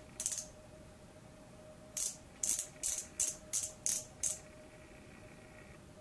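Short clicks from a small twist-up makeup pen as its base is turned to push product up to the sponge-tip applicator: one click, then a quick run of about eight. A faint steady hum sits underneath.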